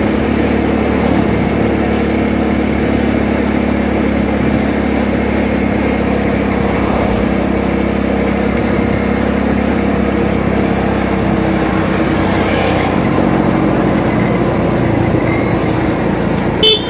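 Motorcycle engine running steadily at cruising speed, heard from the rider's seat over road noise. There is a short sharp sound near the end.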